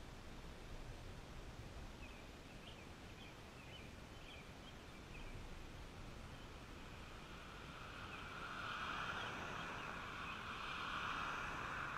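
A car driving past on the road, its tyre noise swelling over the last few seconds. Brief bird chirps come and go in the first half over a low outdoor background.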